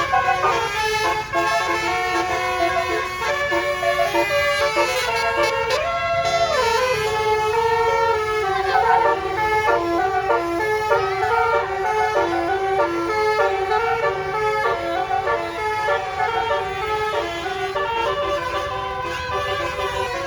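Bus 'telolet basuri' multi-trumpet air horn playing a continuous melody of quick stepped notes, with a note that slides up and back down about six seconds in, over a low rumble.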